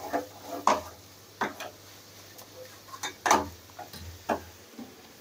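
Wooden spatula knocking and scraping against a metal kadai while stirring mutton bones in a dry spice masala, in irregular clacks about eight times. The mix is being turned so it does not stick to the pan.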